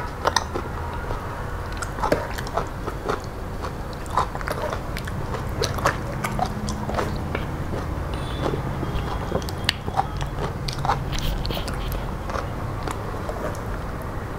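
A man eating rice mixed with dal by hand, close to the microphone: chewing and mouth sounds, heard as a run of short, irregular clicks.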